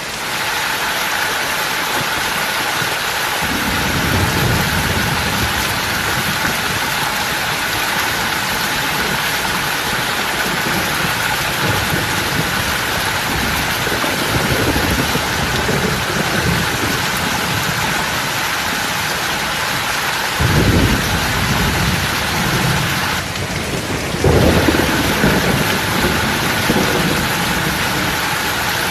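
Loud, steady rushing-water noise, with deep rumbling swells coming and going about 4, 14, 21 and 24 seconds in.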